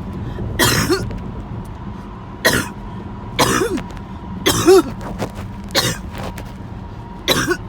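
A person coughing about six times, a second or so apart, several coughs carrying a short rising-and-falling vocal note: the tail end of a long coughing fit.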